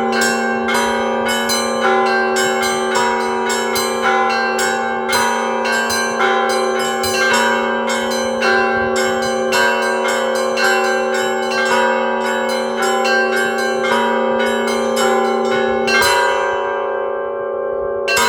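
Cathedral bells rung together in ensemble ringing: rapid strikes on several bells of different pitch, several a second, over the steady ringing of the larger bells. About sixteen seconds in the striking stops and the bells ring on and fade, and one more strike comes at the very end.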